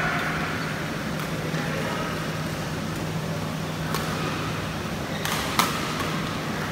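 Badminton rally: sharp cracks of rackets striking the shuttlecock, a few seconds apart, the loudest about five and a half seconds in, over a steady low hum.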